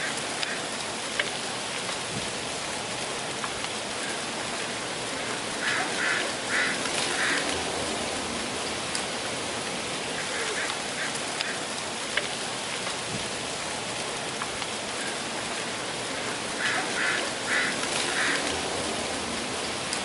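Breeze rustling through a tree's dry autumn leaves, a steady rain-like hiss. A bird calls a few quick repeated notes about six seconds in and again near the end.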